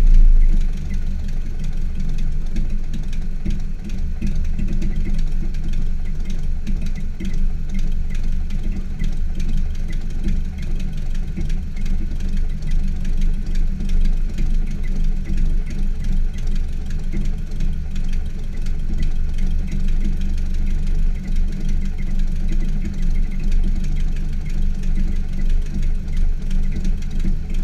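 Nissan CA18DET 1.8-litre twin-cam turbocharged four-cylinder idling on a cold start. The start-up flare dies down in the first half second, then it runs at a steady idle.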